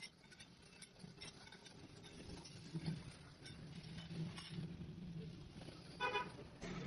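Workshop noise: a steady low machine hum with scattered light metallic clinks, and a short pitched call about six seconds in.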